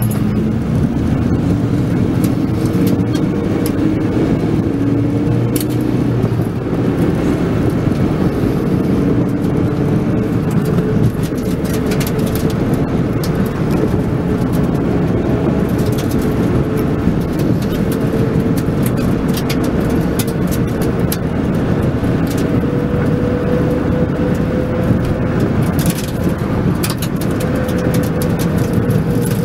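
Car engine running with tyre and road noise, heard from inside the cabin. The engine's pitch drifts gently up and down with speed, and there are a few light clicks now and then.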